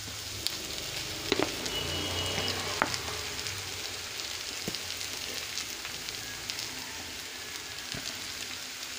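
Diced onions sizzling in hot oil in a nonstick frying pan as mashed boiled potatoes are scraped in from a plastic bowl, with a few sharp clicks of utensil on bowl or pan.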